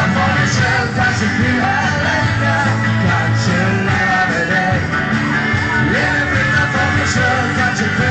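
Live rock band playing on stage with a singer, recorded from among the audience.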